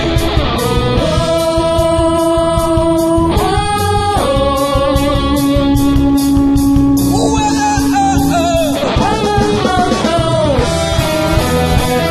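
Rock band playing live: a male voice sings long held notes that slide between pitches, over electric guitars and a drum kit.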